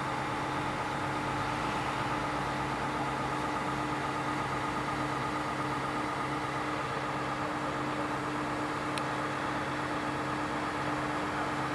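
Heavy diesel engine of a mobile crane running at a steady speed, a constant drone with a steady hum, and a single short click about nine seconds in.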